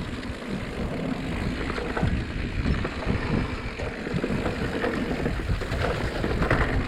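Mountain bike rolling over a rough dirt trail: a continuous rumble of tyres on dirt and rock, with frequent small rattles and knocks from the bike.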